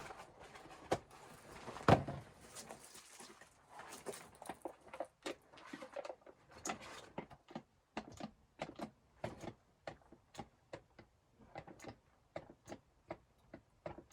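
Irregular short knocks and clicks, a few to several a second, with one louder thump about two seconds in.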